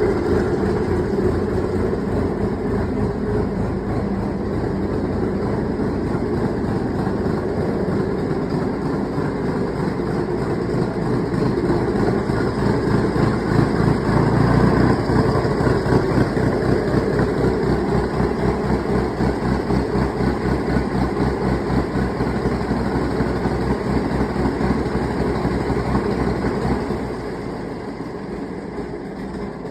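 Vehicle engine running steadily with a fast, even low pulse, becoming noticeably quieter about 27 seconds in.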